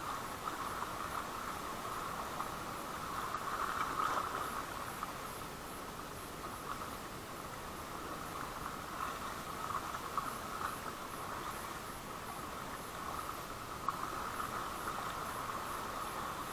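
Steady night-time insect chirring, as of crickets, with faint regular high ticks about twice a second and one brief click near the end.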